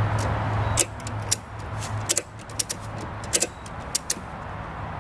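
Ratchet strap being cranked under load as a makeshift winch: its ratchet mechanism clicks sharply at an irregular pace, about a dozen clicks in a few seconds. A low steady hum drops away about a second in.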